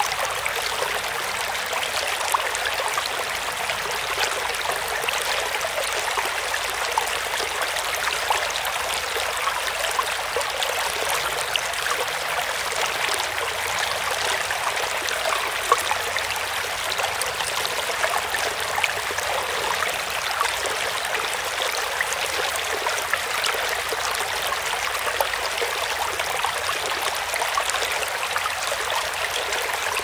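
A mountain creek flowing: a steady rush of water, flecked throughout with many small splashes and trickles.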